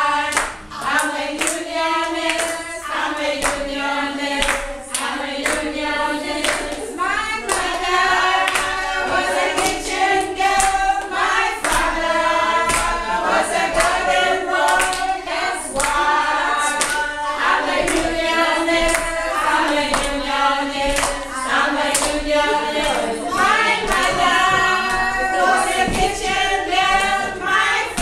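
A group of voices singing together in chorus, accompanied by hand clapping in time.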